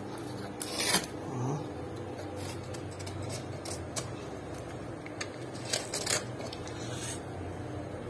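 Small boning knife cutting and scraping along a rack of ribs, with a few short scrapes about a second in and again around six seconds, over a steady low hum.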